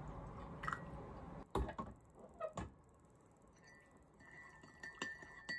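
Coffee pouring from a stovetop moka pot into a ceramic mug, stopping sharply about a second and a half in. A few sharp clicks and light taps follow, with more near the end.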